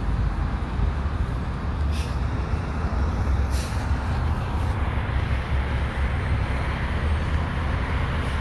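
Steady low rumble of road traffic, with two short hissing clicks about two and three and a half seconds in.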